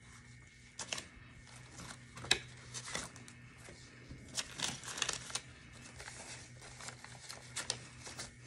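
Paper banknotes rustling and crinkling as they are handled and counted out by hand, in short irregular bursts that are busiest about halfway through, over a faint steady hum.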